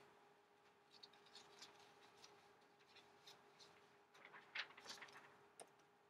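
Near silence: faint scattered taps and scratches of a stylus on a tablet, with a few louder clicks about four and a half to five and a half seconds in, over a faint steady hum.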